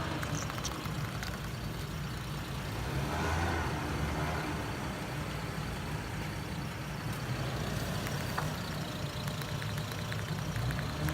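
Car engine idling with a steady low hum that swells briefly a few seconds in, with a few faint clicks over it.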